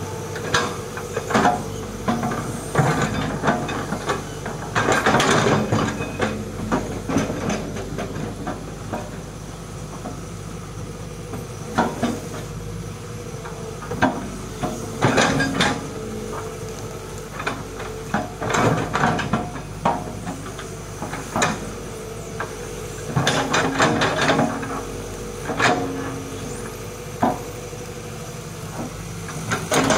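Hitachi hydraulic excavator's diesel engine running steadily under load, with repeated irregular bursts of scraping and clatter as the bucket cuts into soil and roots and dumps them.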